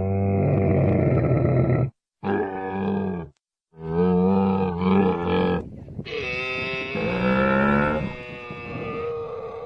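Camels grunting and groaning in a string of calls, the first two cut off abruptly by silences, the last longer and changing in pitch.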